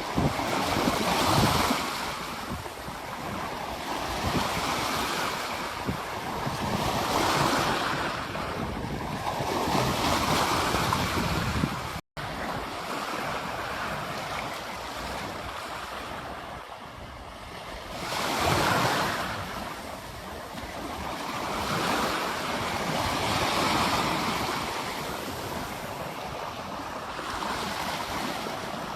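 Ocean waves breaking and washing up a beach, the surf surging and falling back every few seconds. The sound drops out for an instant about twelve seconds in.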